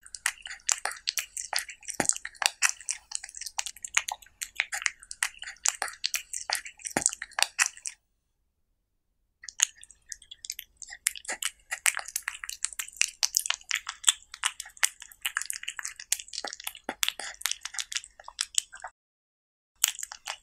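A cat eating diced tomato and cucumber out of a soft tortilla taco, close to the microphone: rapid, crisp chewing clicks, several a second. The sound breaks off into silence about eight seconds in and again near the end.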